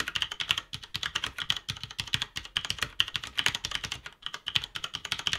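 Typing on a Cherry MX Board 6.0 mechanical keyboard with linear Cherry MX Red switches: a fast, continuous run of key clacks.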